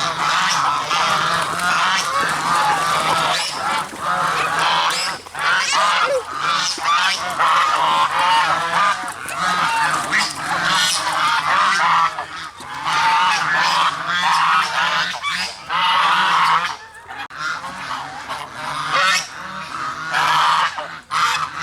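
A flock of geese honking continuously, many calls overlapping into a constant clamour with only brief lulls.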